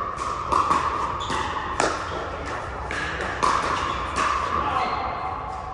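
Pickleball rally: paddles hitting the hard plastic ball, several sharp pocks at uneven intervals, each ringing briefly in the echo of a large hall.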